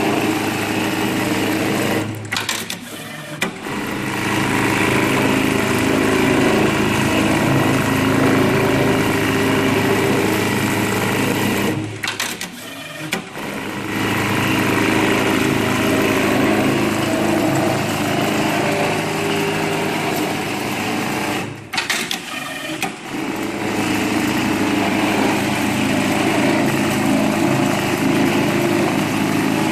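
Industrial programmable pattern sewing machine running, its needle stitching steadily over a constant motor hum. The sound dips briefly three times, about 2, 12 and 22 seconds in.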